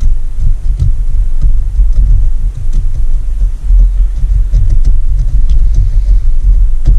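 A heavy, uneven low rumble, with faint scratchy ticks of a small screwdriver tip picking at the carbon-stuck ring of a two-stroke outboard piston.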